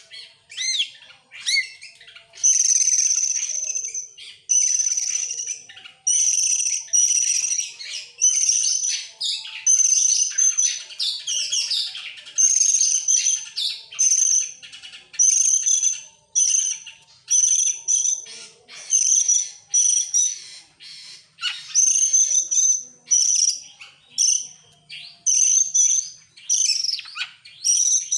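Oriental magpie-robin (kacer) singing vigorously. It delivers a long string of rapid, varied phrases of about a second each, separated by brief pauses, and most phrases carry a repeated clear high whistled note.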